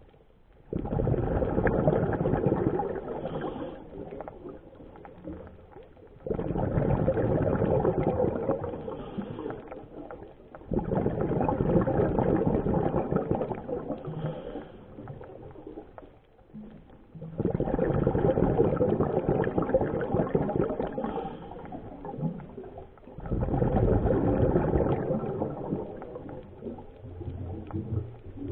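Scuba diver breathing out through a regulator underwater, the exhaled bubbles rushing and gurgling in five long bursts about every five to six seconds, with quieter pauses between breaths.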